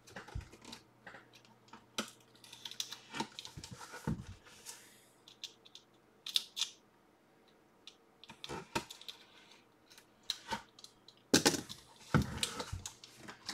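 Hands handling a cardboard mailing tube and working at its red seal tape: scattered clicks, scrapes and crinkles, busiest near the end.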